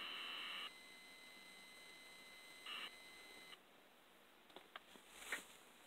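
ZX Spectrum tape-loading data signal, fed from an MP3 player through an amplified ear input, heard as a steady hiss coming off the Spectrum. It cuts off less than a second in as the program finishes loading. A brief burst and a faint tone follow, then near silence with a few faint clicks.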